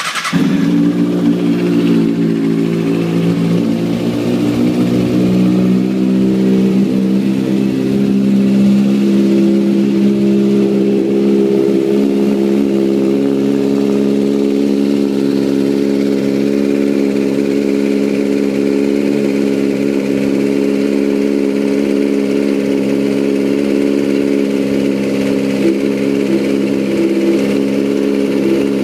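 2009 Kawasaki Ninja ZX-6R's inline-four engine running through a Competition Werkes aftermarket exhaust. It catches at the very start and then idles steadily at an even pitch.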